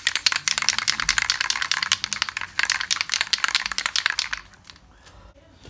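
Rapid, dense crackling and clicking of something being handled, stopping about four and a half seconds in.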